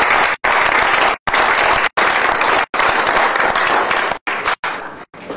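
Small audience applauding, the clapping dying away about four to five seconds in. The audio cuts out completely for brief moments several times.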